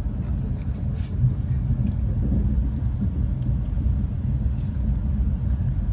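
Steady low rumble of a Renfe class 130 (Talgo 250) high-speed train running along the line, heard on board, with a few faint clicks.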